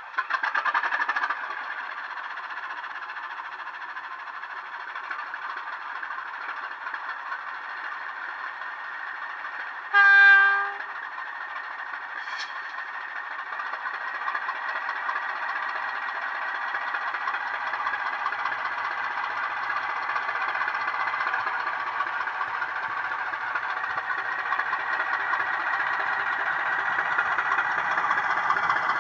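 Model diesel locomotive's DCC sound decoder playing a recorded Class 15/16 diesel engine through a small bass-enhanced speaker. The engine runs steadily, sounds one short horn blast about ten seconds in, and then its note builds gradually as the locomotive pulls away.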